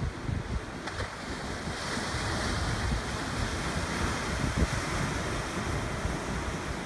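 Heavy hurricane surf breaking and washing ashore, a steady hiss that swells about two seconds in, with wind buffeting the microphone.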